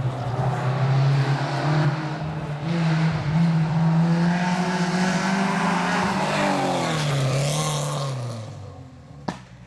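Rally car engine under hard acceleration, its pitch climbing in steps through gear changes, then dropping and fading as the car goes away. A sharp click near the end.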